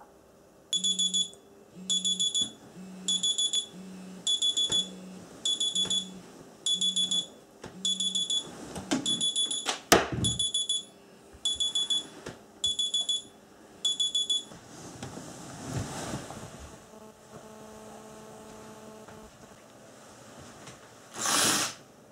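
Mobile phone alarm going off: groups of rapid high-pitched beeps repeating about once a second, with a low buzz under the first several, stopping about 14 seconds in. Bedding rustles and a sharp knock come around the tenth second, and a short loud rush of noise sounds near the end.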